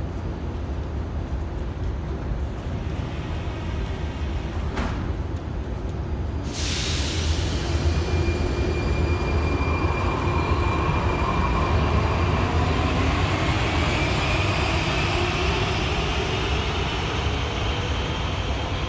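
81-71M metro train pulling out of a station: a knock about five seconds in, then a sudden hiss. After that comes the whine of its traction motors, rising in pitch over wheel and rail rumble as it speeds up and leaves.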